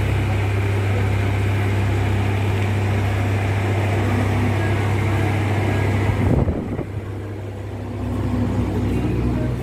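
Motor vehicle running: a steady low engine hum under road noise. About six seconds in the noise briefly jolts, then drops and settles to a lower, steadier hum.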